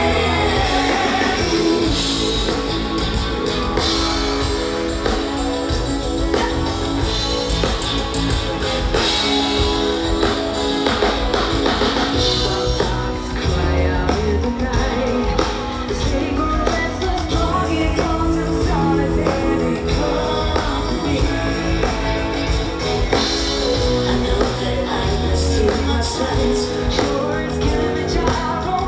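Live rock band playing, with a singer, electric guitar and drum kit, amplified through a big outdoor PA.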